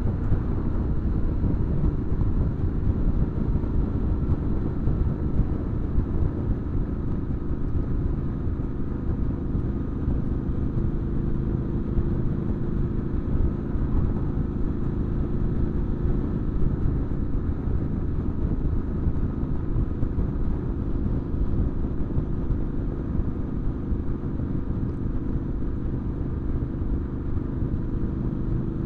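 Triumph Scrambler 900's parallel-twin engine running through an Arrow aftermarket exhaust, cruising at a steady speed with an even, unchanging note, heard from on the bike.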